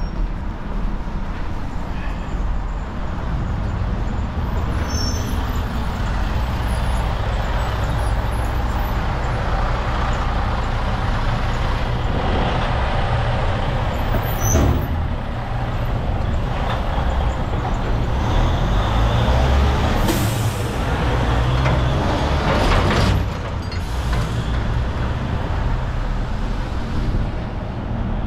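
City street traffic: the engines of a heavy truck and a city bus rumbling steadily, with two short hisses of air brakes about three seconds apart, some two-thirds of the way in.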